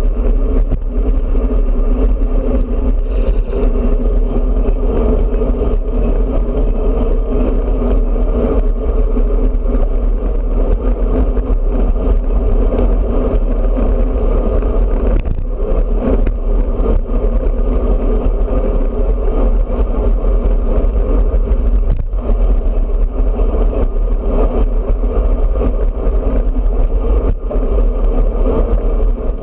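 Steady wind rush on the microphone of a road bike ridden at speed, mixed with the hum of tyres on asphalt; it dips briefly a couple of times.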